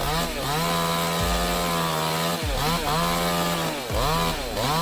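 Two-stroke chainsaw running at full throttle, its high engine note briefly dropping in pitch and revving straight back up about four times.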